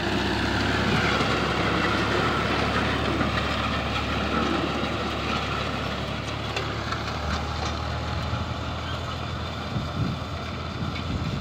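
Fiat 480 tractor's three-cylinder diesel engine running steadily under load while pulling a disc harrow through dry soil, slowly fading a little as it moves away.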